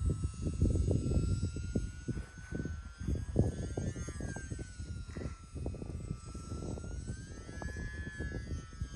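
Small electric R/C plane, an E-flite UMX Turbo Timber, flying: the motor and propeller give a thin steady whine that slowly drifts down and back up in pitch. Heavy, gusty wind buffeting on the microphone runs under it and is the loudest sound.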